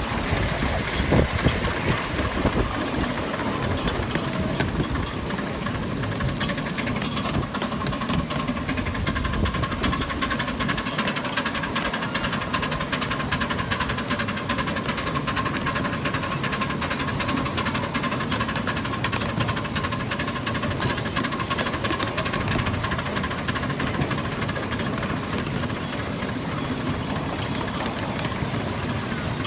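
Miniature steam locomotive running along the track, heard from the footplate: a steady, fast rhythm of exhaust beats and wheel clatter. A brief hiss cuts in for about two seconds near the start.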